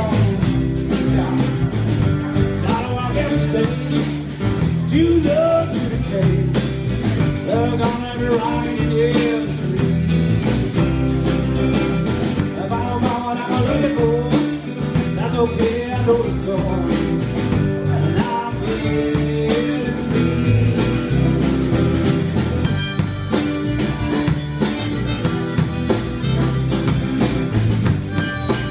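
Live country-blues band playing an instrumental break: strummed acoustic guitar, electric guitar and drums keeping a steady beat, with a lead line whose notes bend in pitch.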